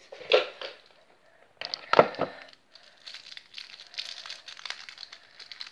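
Plastic sweet wrapper crinkling in a steady run of fine crackles as a wrapped candy is twisted open by hand, starting about three seconds in. A single sharp knock comes about a second before it.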